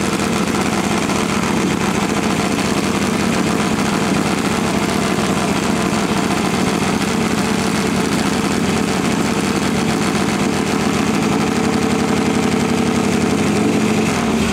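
V-twin engine of a drag-racing motorcycle idling steadily on its stand during a pit warm-up, the rear slick turning. The pitch stays even throughout, with no revs.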